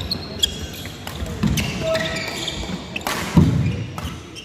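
Badminton doubles rally on a wooden court: sharp racket strikes on the shuttlecock, the loudest about three and a half seconds in, amid shoe squeaks and thudding footfalls.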